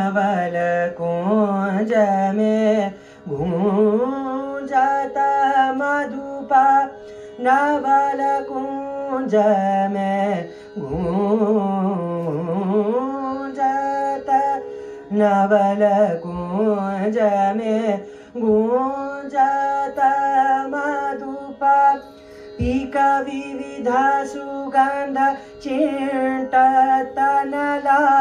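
Indian classical dance song: a male singer sings long, ornamented phrases that glide and bend in pitch over a steady drone, with a few deep drum strokes spaced several seconds apart.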